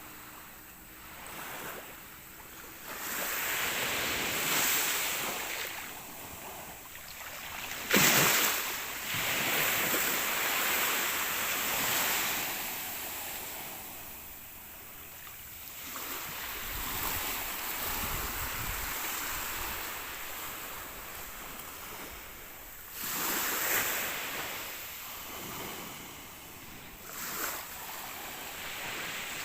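Sea waves breaking and washing up the shore, rising and falling in several surges, the sharpest crash about eight seconds in.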